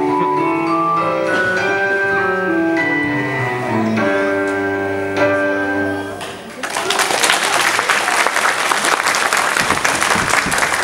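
Ballet music with sustained piano-like notes ends on a held chord, and about two-thirds of the way through an audience breaks into applause that runs on steadily.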